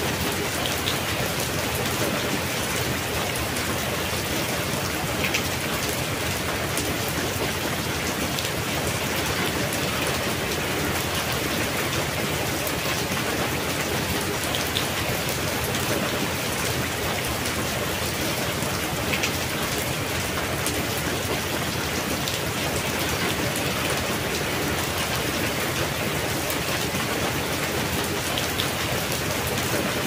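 Steady rain falling: an even hiss with a few single drops ticking out here and there.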